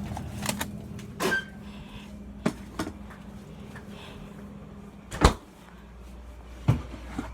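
Refrigerator door and the containers inside being handled: a series of sharp knocks and clatters, the loudest about five seconds in and another strong one near the end.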